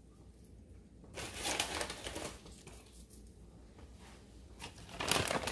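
Crinkly rustling of crisp fried onions being crumbled and sprinkled by hand over rice, in two bursts: one about a second in lasting about a second, one near the end.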